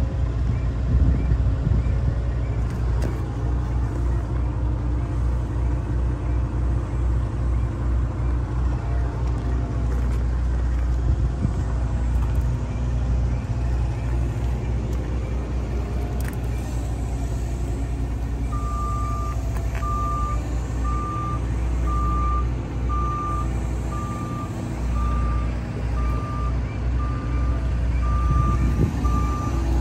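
A low, steady, pulsing rumble throughout. A little past the middle, a vehicle's reversing alarm starts beeping at one pitch, a bit more often than once a second, and keeps on.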